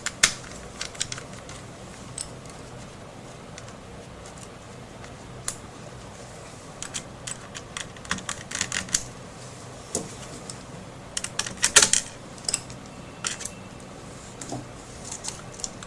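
Small irregular clicks and taps of a screwdriver working out the hard-drive screws inside an opened netbook, with a louder cluster of clicks about twelve seconds in.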